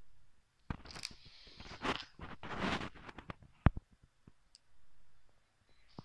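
Handling noises: scattered clicks and short scraping or rustling sounds, with one sharp knock about two-thirds of the way through. No motor running.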